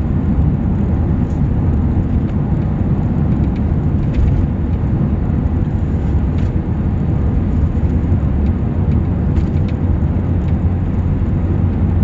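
Steady low rumble of a running car, heard inside its cabin.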